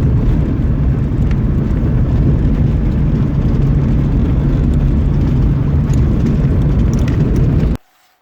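Steady low rumble of a moving motor vehicle, engine and road noise, that cuts off abruptly near the end.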